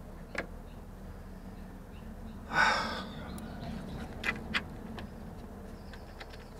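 A few light clicks of a hand tool on metal as bolts are worked in a Prius engine bay, with one sharp, loud breath about two and a half seconds in.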